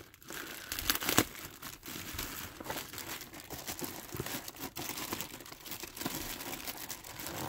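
Clear plastic bag crinkling as it is handled and pulled around a cardboard Funko Pop box, an irregular run of crackles with a louder one about a second in.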